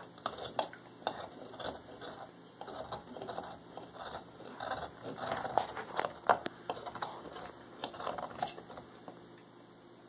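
Pit bull gnawing a hard bone-shaped chew toy: irregular crunching and sharp clicks of teeth on the toy, dying away about eight and a half seconds in.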